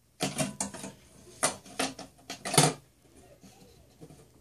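A screen-covered plastic egg crate panel knocking and scraping against the glass of a terrarium as it is pushed into place on the tank floor: a quick series of clicks and knocks, the loudest about two and a half seconds in, then it goes faint.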